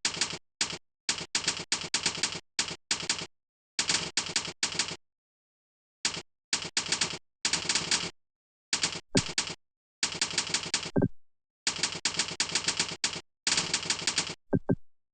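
Typing on a computer keyboard: rapid runs of keystrokes in bursts of about half a second to a second and a half, broken by short pauses of dead silence.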